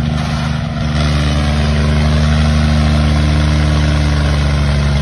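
John Deere tractor diesel engines running hard under heavy load as two tractors pull against each other in a tug-of-war. The low engine note is steady and grows a little louder about a second in.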